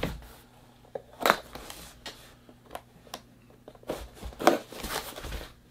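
Taped cardboard shipping box being opened, with scattered short crackles and scrapes of tape and cardboard.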